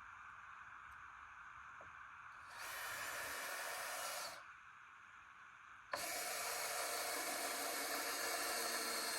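Power drill running in two bursts, a short one about two and a half seconds in and a longer one starting sharply about six seconds in.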